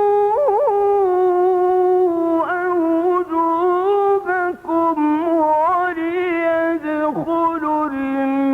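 A male Quran reciter's voice in melodic tajweed recitation, drawing out one long unbroken vowel. It holds a high note, shakes it with a quick trill about half a second in, then turns and steps down through the melody to a lower held note near the end.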